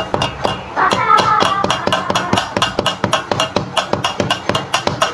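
Pencil scratching across paper in quick hatching strokes, a run of sharp scratchy ticks several a second, with a brief wavering tone about a second in.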